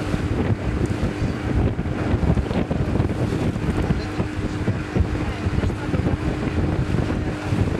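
Wind buffeting the microphone over a river boat's motor running steadily, a constant hum held at one pitch.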